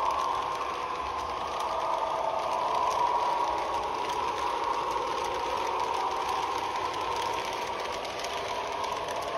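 Model railway passenger train rolling past, its small electric motor humming steadily and the coach wheels rattling and clicking over the track.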